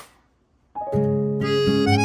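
Background music with a reedy, harmonica-like lead comes in about three-quarters of a second in and carries on steadily, after a brief noisy rustle fades out at the very start.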